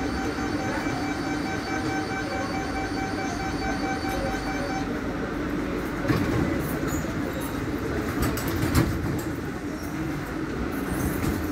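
Barcelona Metro Series 4000 train standing at a station platform, its equipment giving a steady hum. A held tone with overtones sounds for the first five seconds or so and then stops. A thud comes about six seconds in and a sharp click near nine seconds.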